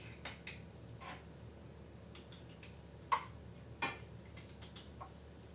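A spoon clicking and tapping against a lasagna dish as plant cheese is spread over a layer: a few scattered light taps, the sharpest about three seconds in.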